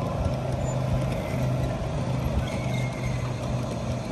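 Garden-scale model passenger train rolling past on outdoor track: a steady rumble of metal wheels on the rails with scattered clicks and a steady low hum.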